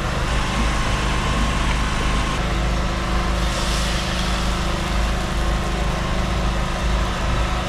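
A steady low mechanical hum, like an engine running close by. A brief hiss comes a little over three seconds in.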